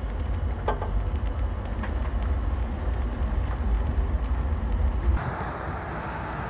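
Low, irregular rumble of wind buffeting the microphone, with a few faint clicks. About five seconds in, it changes abruptly to a steady hiss.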